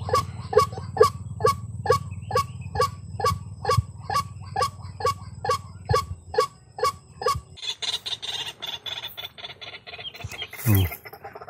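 Repeated honking calls of a white-breasted waterhen (ruak-ruak), evenly spaced at about three a second, stopping abruptly about two-thirds of the way through. Fainter noise follows, with one short falling call near the end.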